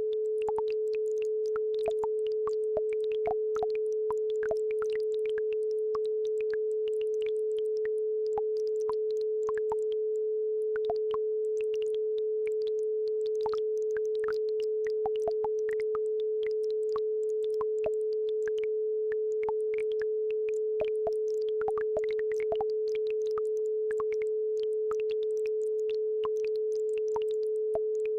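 A steady 432 Hz sine tone held without a break, with faint, scattered trickling and bubbling of a babbling brook beneath it.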